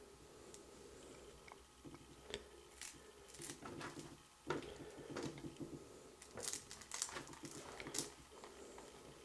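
Chinchilla chewing a hand-fed treat: a string of sharp, irregular crunches.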